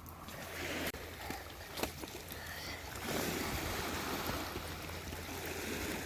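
Small sea waves washing on the shore, a noisy wash that swells about three seconds in.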